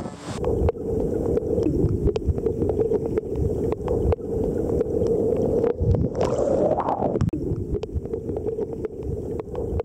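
Muffled underwater sound picked up by a camera held in shallow water: a steady low rumble and hum with many small clicks and crackles, and a brief rising whoosh about six seconds in.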